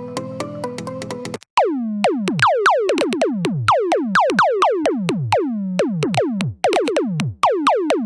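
Xfer Serum software synthesizer presets playing: a stepping synth melody over a steady low drone cuts off about a second and a half in. A new preset follows, a rhythmic run of synth hits that each drop sharply in pitch, about four a second.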